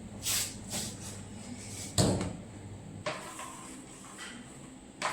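A few household knocks and clatters: two brief swishes, a sharp thud about two seconds in, then lighter clicks.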